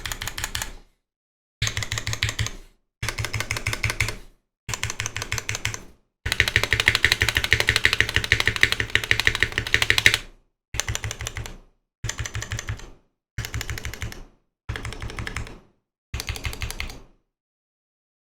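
Typing on a Noxary 280 custom mechanical keyboard with lubed Zealio 78g V2 tactile switches, GMK keycaps and a 5mm polycarbonate plate: rapid keystroke clatter in short bursts with brief silences between them, one longer run of fast typing in the middle, then a stop near the end.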